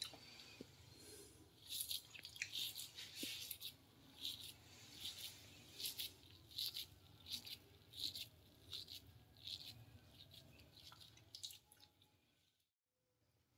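Faint soft rustling and crunching, repeated roughly once or twice a second, as a hand squeezes moist coconut-and-jaggery filling into shape and crumbs fall onto a steel plate.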